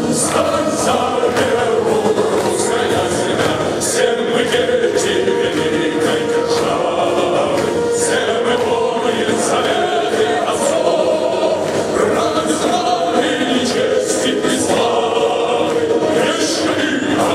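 Choir and soloists singing a song together, with the audience clapping along in time.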